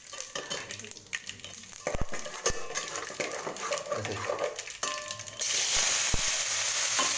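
A steel ladle scrapes and knocks in an aluminium pot of tempering spices frying in a little oil. About five seconds in, a loud, steady sizzle starts as chopped onions, tomatoes and green chillies hit the hot oil.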